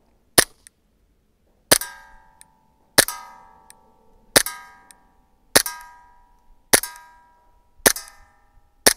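WE Glock 19 gas-blowback airsoft pistol firing eight single shots, about one every 1.2 seconds. From the second shot on, each crack is followed by a short ringing ping of a metal target plate being hit; the first shot has no ring.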